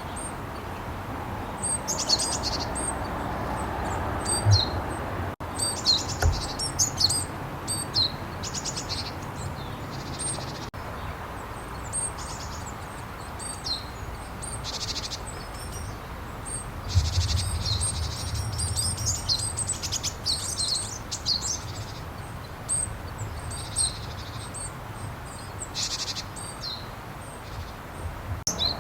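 Japanese tit calling: a varied series of short, high chirps and buzzy call notes repeated throughout, with abrupt changes where recordings are spliced together.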